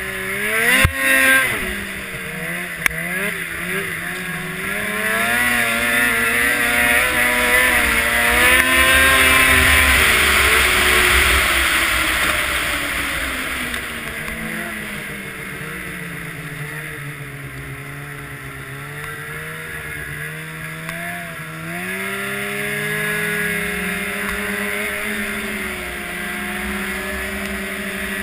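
Snowmobile engine running under way. Its pitch climbs as it speeds up over the first ten seconds or so, eases back down, then rises again a little after twenty seconds, with a rushing hiss strongest at top speed. A couple of sharp knocks about a second in.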